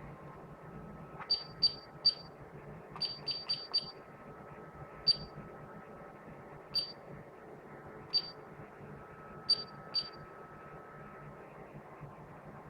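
Security and fire alarm panel beeping: about a dozen short, high beeps at uneven intervals, some in quick runs of three or four.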